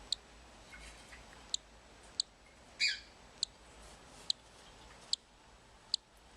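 Newly hatched cockatiel chicks peeping: about eight short, high cheeps spaced roughly a second apart, one a little longer and louder about three seconds in.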